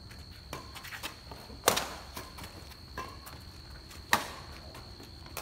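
Badminton rally: rackets striking the shuttlecock in sharp cracks, the two loudest about two and a half seconds apart, with lighter hits and footfalls between. A steady high whine runs underneath.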